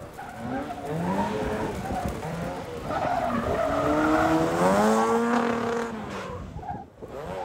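Seven-style sports car driven hard through tight turns, its engine revving up and down over the sound of tyres skidding on tarmac. The engine climbs in pitch and is loudest about five seconds in.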